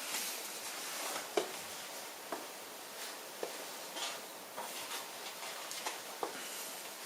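Scattered light clicks and taps over a faint hiss, about one a second.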